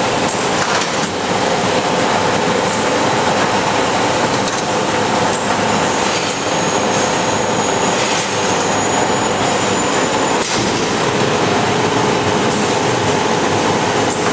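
Olive oil mill machinery running: a loud, steady mechanical din with a couple of brief knocks.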